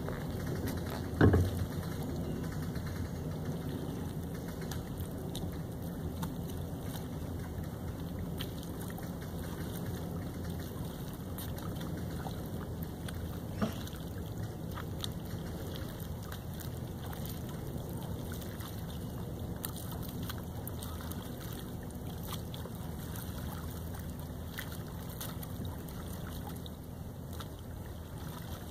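Steady low outdoor noise of wind on the microphone and lake water, with one sharp thump about a second in and a small click near the middle.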